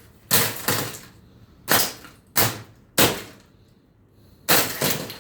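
Heavy blows smashing a broken box fan's metal and brittle plastic housing on a concrete floor: about seven sharp impacts, some in quick pairs, with a pause of about a second and a half near the middle.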